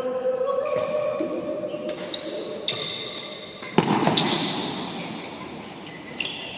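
Badminton rally: rackets striking the shuttlecock several times, the hardest hit about four seconds in, with sneakers squeaking on the court floor.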